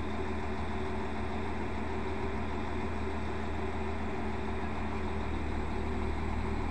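Diesel engine of a Koleje Dolnośląskie SA139 (Pesa Link) diesel multiple unit idling steadily while the train stands at the platform.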